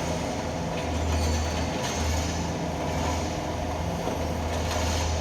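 Mini excavator working: its diesel engine running steadily, with metal scraping and squealing over it.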